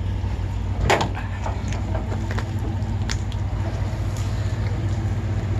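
A steady low machine hum with a few light knocks and scrapes, the loudest about a second in, as a heavy rubber power cable is pulled and handled.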